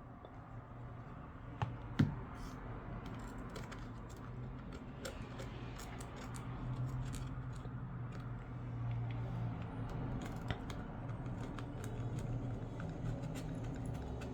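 Small scattered clicks and scrapes of hand tools working on an iPad 2's frame, with one sharp click about two seconds in, over a low steady hum.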